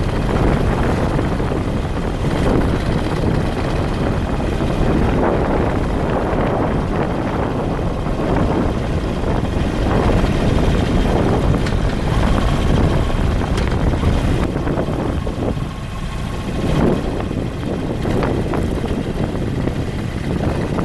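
A vehicle on the move: steady road and engine noise with heavy low wind buffeting on the microphone.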